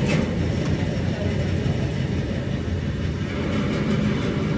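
Steady low mechanical rumble, with a brief click just after the start.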